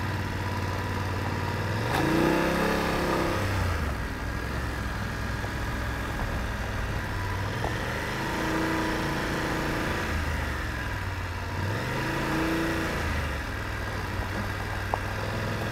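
BMW F750GS parallel-twin engine running at low road speed, its pitch swelling and falling back three times as the throttle is opened and eased, over tyre noise on gravel.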